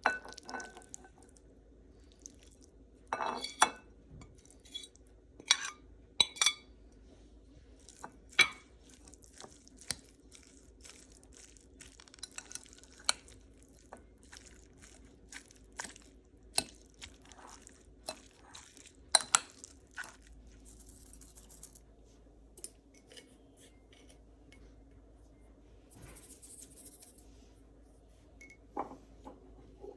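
Kitchen utensils and dishes clinking and knocking at irregular intervals, a few sharper knocks among lighter clicks, over a faint steady hum.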